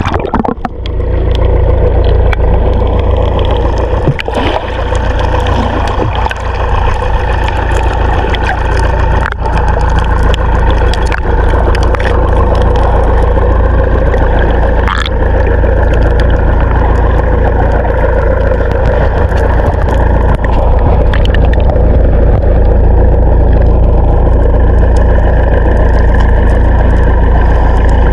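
Fishing boat's engine running steadily at sea, with a strong low rumble throughout and a few short knocks.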